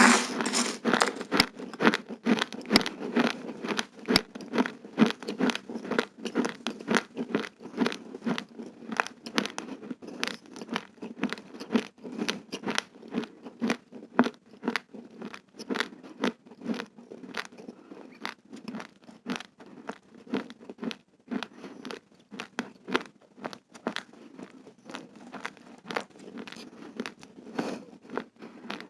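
A person chewing a mouthful of raw, uncooked rice grains close to the microphone: quick, crisp crunching at about three to four crunches a second, keeping up without a pause.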